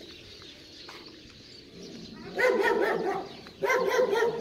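A dog barking in two quick bouts of repeated barks, the first starting a little over two seconds in.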